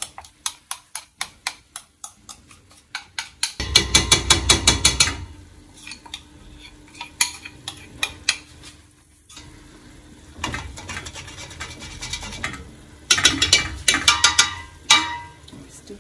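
A metal spoon scraping and knocking inside a plastic tub as peanut butter is scraped out into a cooking pot, in quick runs of clicking taps. The loudest, fastest runs come about four seconds in and again near the end.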